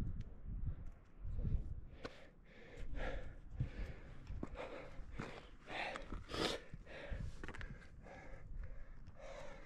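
A person breathing hard in repeated gasping breaths, roughly one a second, from the exertion of scrambling up steep rock. Low thumps and rumble on the microphone run underneath.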